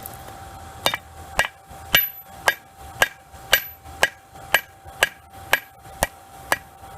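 Cross-peen hammer striking a hot railroad spike, drawing out the knife's bevel. The blows start about a second in and come steadily about two a second, each with a short metallic ring.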